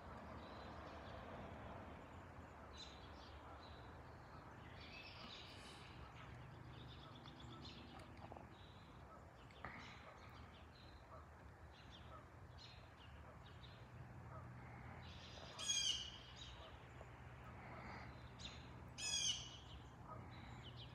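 Birds chirping and calling, with two louder calls late on, over a faint steady low rumble.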